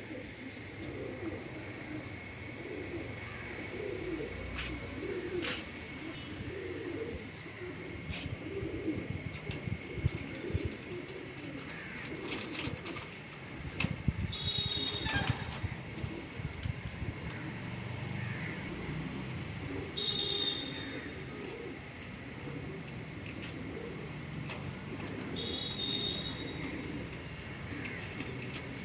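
Racing homer pigeons cooing steadily in the loft, with sharp metal clicks and rattles from the latches of the wire-mesh loft doors being handled. A few short high chirps come through now and then.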